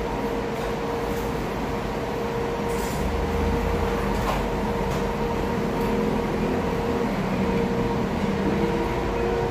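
Steady mechanical hum of a restaurant dining room, a constant drone over a low rumble, with a few faint clicks of a metal fork against a plate.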